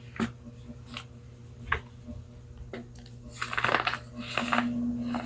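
Baking soda being crunched and crumbled: a few separate sharp clicks about a second apart, then a denser crackling crunch starting about three seconds in, over a steady low hum.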